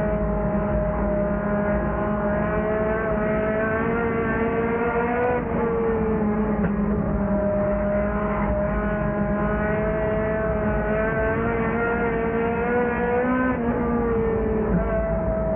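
Lightning sprint race car engine running hard, heard from on board the car, its pitch rising and dipping a little as it laps.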